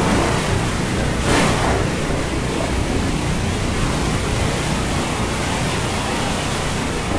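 Steady rushing water noise of heavy rain and surf, with a brief surge about a second and a half in.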